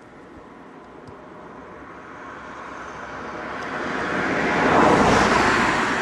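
A vehicle approaching: a rushing noise that swells steadily over about five seconds and is loudest near the end.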